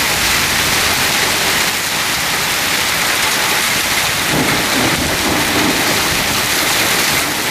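Torrential rain, mixed with quarter-size hail, pouring down in a steady, dense hiss.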